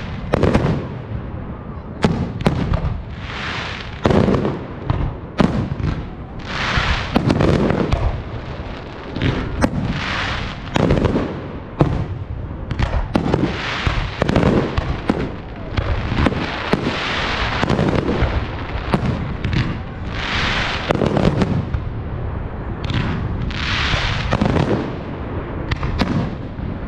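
Aerial firework shells bursting one after another in a continuous barrage: sharp bangs with crackling and rumbling between them.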